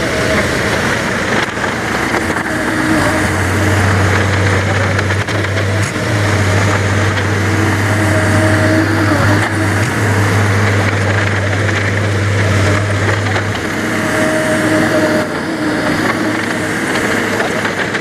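John Deere 260 skid steer's diesel engine running as the machine works the dirt, over a steady background noise. A low drone comes in a few seconds in and drops out about ten seconds later.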